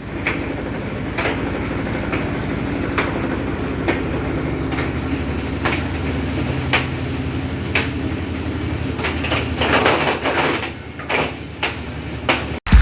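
Consul 10 kg washing machine running in its spin cycle: a steady hum with a sharp knock about once a second, turning to more irregular rattling and banging in the last few seconds. This is the heavy noise in the spin that the machine was being repaired for.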